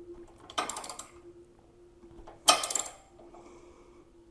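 Ratchet wrench clicking in two short runs about two seconds apart while a bolt is tightened on a metal saddlebag support rack.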